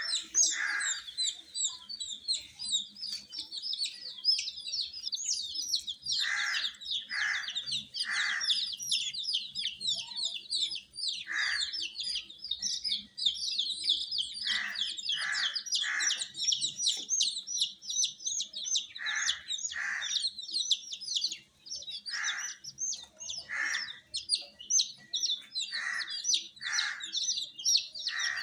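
A group of baby chicks peeping nonstop, many short high chirps overlapping, with a lower, fuller call breaking in every second or two.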